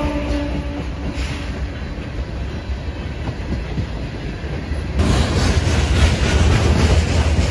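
Freight train tank cars and gondolas rolling past close by: a heavy, steady rumble with wheels clacking over the rail joints. A steady tone fades out in the first second, and the rumble grows louder about five seconds in.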